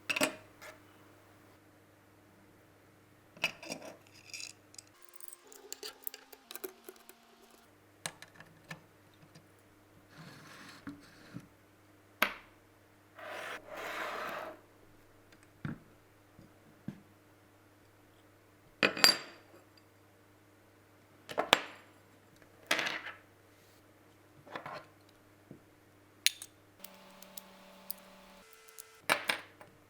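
Scattered sharp metallic clicks and clinks of camera rig parts being handled and fitted together, with a longer scraping rub about halfway through, over a faint steady hum.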